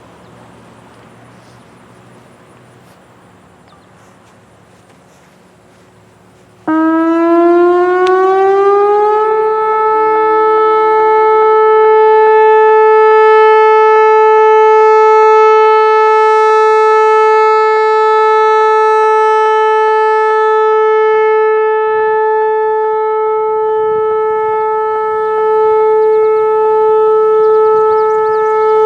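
Whelen Vortex R4 outdoor warning siren sounding its steady Alert tone. After about six seconds of quiet background it comes on suddenly, slides up in pitch over two or three seconds, then holds one loud, steady tone.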